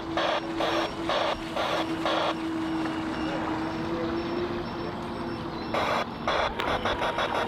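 A model boat's electronic sound unit playing a chugging engine sound through a small speaker, about three pulses a second. The pulses drop away for a few seconds under a steady hum, then return faster near the end.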